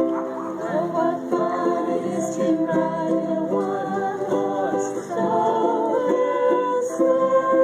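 Live music from a small ensemble, voices and instruments together, with held notes and changing chords.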